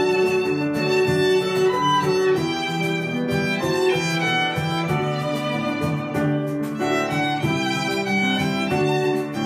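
Two violins playing a melody together over grand piano accompaniment, a small live ensemble heard in a room.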